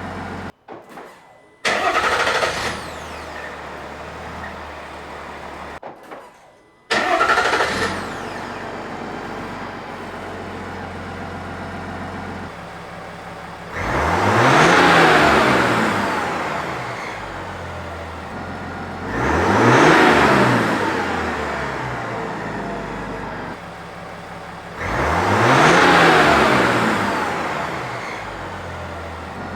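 Engine of a 2022 Chevrolet Silverado, a 3.0 L LM2 Duramax inline-six turbodiesel, heard through its exhaust. Twice it starts with a sudden loud flare and settles into a steady idle. Then it is revved three times, each rev climbing and falling back to idle over about three seconds.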